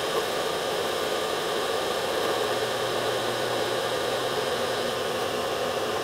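Horizontal metal-cutting bandsaw running steadily, its blade sawing through 6061 aluminum round bar under a heavy flow of coolant. The blade is not aggressive enough for aluminum, so it cuts slowly.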